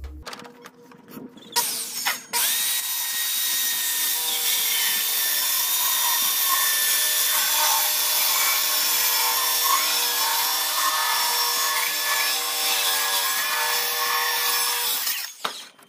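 Electric power tool running steadily on wood at an even pitch for about thirteen seconds, then cutting off sharply; a few knocks come just before it starts.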